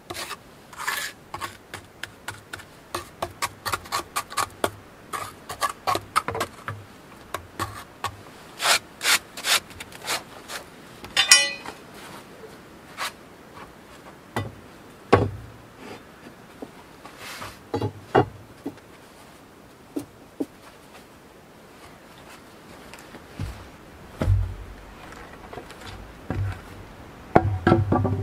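Trowel scraping and smoothing wet cement: quick short strokes, about two or three a second, over the first ten seconds or so, then slower scattered scrapes with a few dull knocks.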